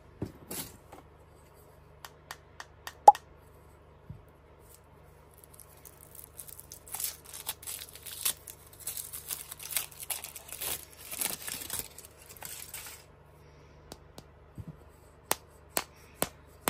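Foil wrapper of a chocolate egg being peeled off by hand: crinkling and tearing for several seconds in the middle. Scattered sharp clicks come before it, the loudest about three seconds in, and a few more sharp clicks come near the end.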